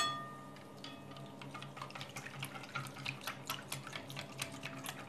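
A whisk beating a thin milky mixture of milk, water, yogurt and egg whites in a glass bowl: quiet, quick, irregular splashing with light ticks of the wires against the glass. It opens with one ringing clink of glass on the glass bowl.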